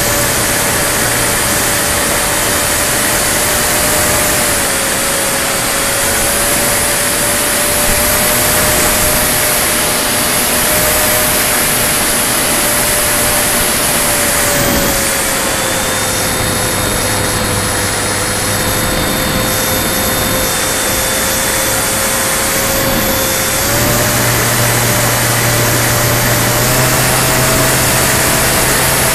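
Radio-controlled model Spitfire's motor and propeller running, heard from a camera on the wing over a rush of wind. It holds one steady pitch, which drops a little in the middle and rises again near the end as the throttle changes.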